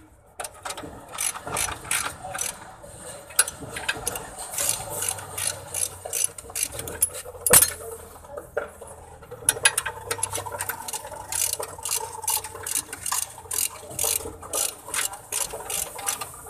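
Hand ratchet wrench clicking in quick runs of strokes as the bolts of a new upper suspension control arm are tightened, with one sharper metal knock about seven and a half seconds in.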